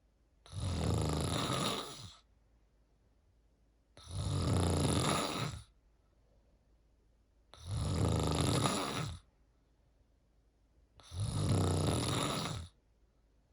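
A sleeping person snoring in a steady rhythm: four long snores, each about a second and a half, coming roughly every three and a half seconds with quiet breaths between.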